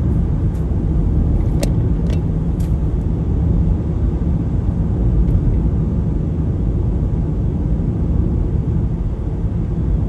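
Road and engine noise of a car driving at about 40 mph, heard from inside the car: a steady low rumble. A few light clicks come in the first three seconds.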